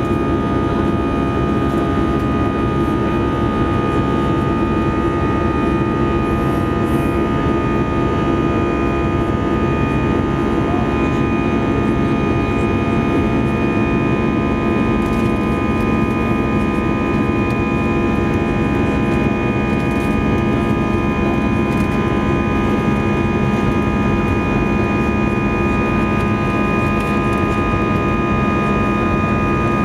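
Airbus A320 jet engines and rushing air heard from inside the passenger cabin during climb: a steady, loud roar with a constant thin whine over it.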